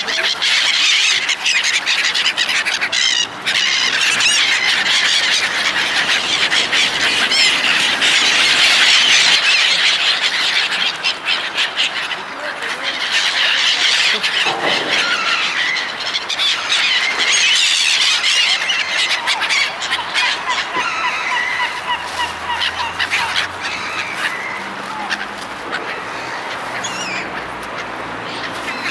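A large flock of seagulls calling and squawking over one another without a break, a dense chorus of shrill cries that eases a little over the last third.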